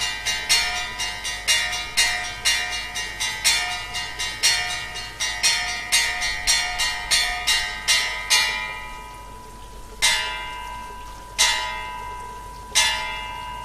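Church bells rung in a quick rhythmic peal of several pitches, about three or four strokes a second. The peal stops about eight seconds in, and then comes a slow close of three single strokes, each left to ring out.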